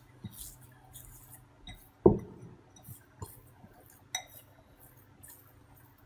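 Hands working risen bread dough out of a bowl, the bowl knocking against the mat and hands: one loud knock about two seconds in that rings briefly, and a few lighter knocks and soft rustles of the sticky dough around it.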